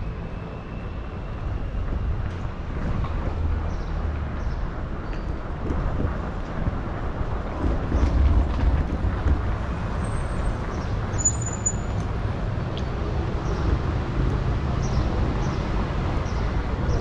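Street and traffic noise heard from a moving bicycle: a steady rumble, with wind buffeting the microphone and scattered light ticks.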